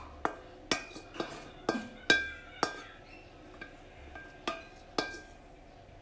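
A metal utensil clinking and scraping against a stainless steel frying pan as stir-fried squid is scooped out onto a plate. The clinks are sharp and ringing, several in quick succession at first, then two more spaced out near the end.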